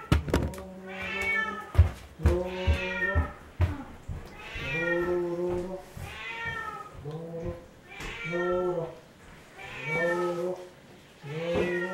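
Cat meowing over and over: long, drawn-out meows about every one and a half to two seconds, with a couple of sharp knocks early in the run.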